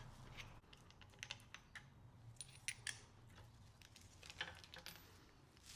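Near silence broken by faint, scattered light clicks at uneven intervals: hand tools and small metal engine parts being handled.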